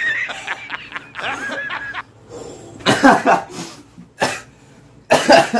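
Coughing and laughter in several short bursts, the reaction to the burn of chili pepper hidden in food.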